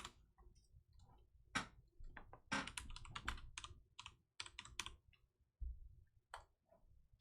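Faint, irregular clicks and snaps of trading cards being handled and flicked through, with a busy run of them in the middle.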